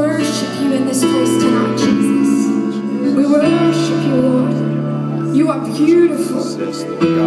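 Live worship music: sustained keyboard chords changing every second or two, with a voice over them at times.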